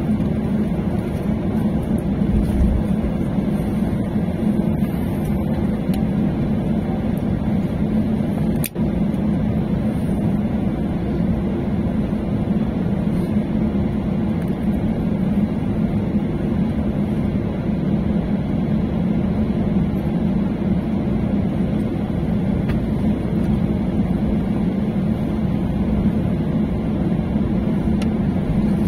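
Steady airliner cabin noise from the engines during taxiing: a loud, even low hum, broken by a short click and dip about nine seconds in.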